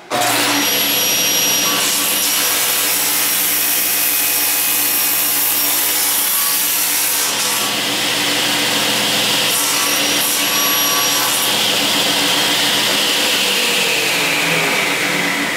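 A table saw with an 80-tooth non-ferrous carbide blade starts abruptly and cuts through a thick solid 6061 aluminum block, a loud, steady, high-pitched cutting noise. Near the end its whine falls in pitch.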